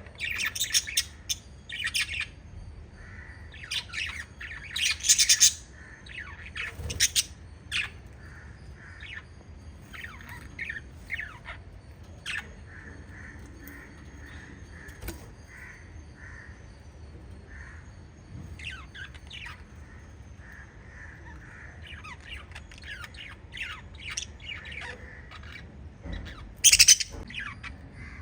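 Several lovebirds chirping and squawking: clusters of loud, shrill calls in the first few seconds and again near the end, over a softer, continuous chatter.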